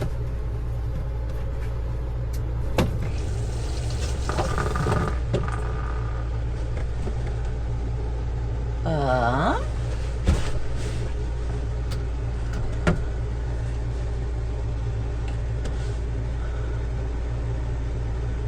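Motorhome's 12-volt water pump running with a steady low hum as it pressurises the freshly repaired sink line. A few sharp clicks and a short rustle of handling come over it.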